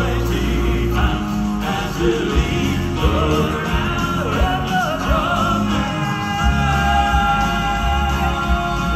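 Southern gospel male quartet singing live in harmony with instrumental accompaniment, settling into long held notes from about six seconds in.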